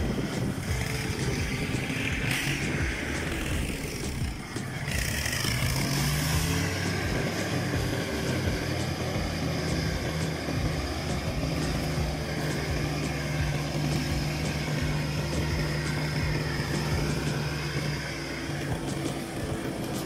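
Two-wheel tractor's single-cylinder diesel engine running steadily while pulling a loaded trailer, its speed picking up slightly about six seconds in and then holding.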